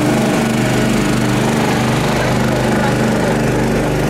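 Small portable generator engine running steadily at a constant speed.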